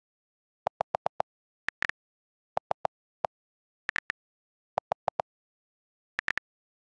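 iPad on-screen keyboard key-click sounds: quick runs of two to five clicks, a run every second or so. Some runs have a higher, sharper click than the rest.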